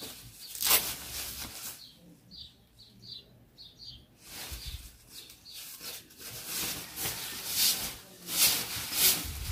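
Fabric rustling and handling noise as a jacket is picked up and pulled on over the head. About two seconds in, during a quieter moment, a bird chirps about six times in quick succession.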